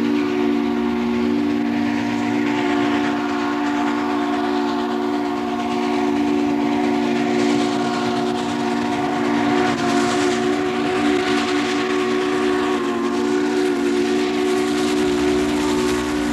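Steam locomotive's chime whistle sounding in a long, steady, multi-note chord as the train runs past, with a rush of steam and running noise beneath it; the chord wavers slightly about ten seconds in.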